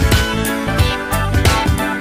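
Background music with a steady beat and plucked guitar.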